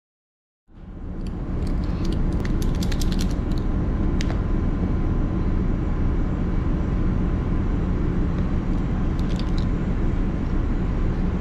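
Steady low drone of a ship's running machinery, starting abruptly about a second in. Over it come a few quick light clicks and taps from a small metal instrument box being handled on a desk, in a cluster early on and again near the end.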